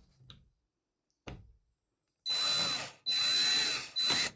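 Power drill run in three short bursts in the second half, with a steady high motor whine, driving a screw for a door latch. A single knock comes about a second in.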